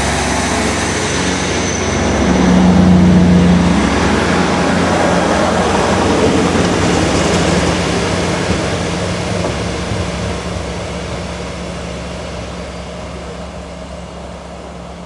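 GWR diesel multiple unit running past on the line: a steady diesel engine drone with wheel-on-rail rumble. It is loudest a few seconds in, then fades gradually.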